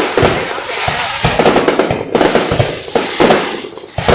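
Fireworks going off in rapid, irregular bangs, one after another, with music playing underneath.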